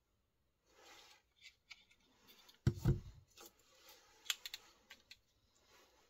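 Victorinox Ranger 78 M Grip Swiss Army knife being handled: rustles and a scatter of small sharp clicks from its tools, with one dull thump just before the middle.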